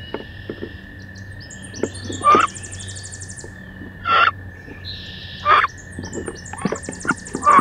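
Two female wood ducks fighting in a wooden nest box: four loud, short calls spaced about every second and a half, with scrapes and knocks against the wood between them. A songbird trills twice in the background.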